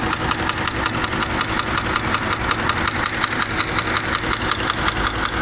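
Subaru engine idling with a rapid, even knocking riding on the running sound: the engine knock that has the owner weighing a repair against a replacement engine.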